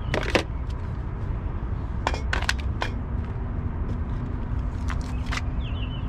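Sharp clicks and knocks of objects and a rubber floor mat being handled and pulled out of a car's interior, in three clusters: right at the start, about two seconds in, and about five seconds in. A steady low rumble underlies them.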